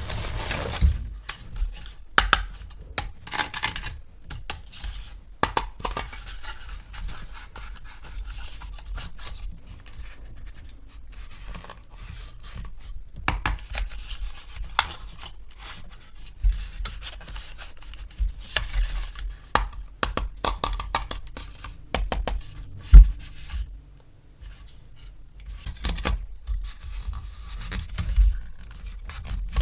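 Hands unboxing plastic toys: packaging and plastic parts scratching, rubbing and tearing, with frequent irregular clicks and knocks. One sharp knock stands out near the end.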